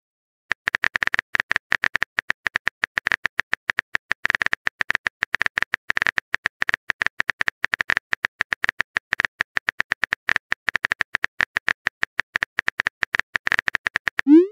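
Rapid on-screen keyboard typing clicks, the typing sound effect of a texting-story app, several a second with a short tone in each click. They start about half a second in and stop just before the end.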